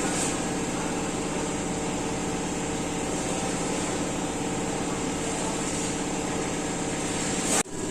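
Steady machine hum, like an engine or motor running at a constant idle, with a low drone and a few steady tones; it cuts off abruptly near the end.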